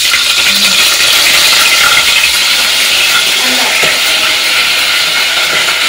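Fresh ginger frying in hot oil: a loud, steady sizzle that starts and cuts off abruptly.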